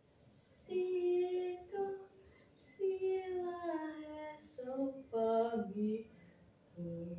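A female voice singing slowly in short phrases of long held notes, with pauses between them; one phrase in the middle slides gradually downward in pitch.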